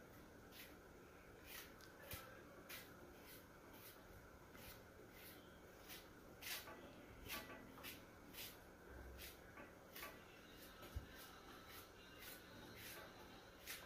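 Faint, irregular scrapes and ticks of a small kitchen knife cutting a piece of ginger by hand, about one or two a second, over a low steady hum.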